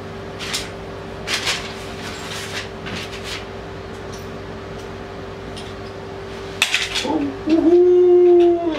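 Light clicks and knocks of hard plastic and metal fittings being handled at the toilet, with a louder clatter about six and a half seconds in. Near the end comes a loud held tone that glides up briefly and then stays steady for just over a second, over a faint steady hum.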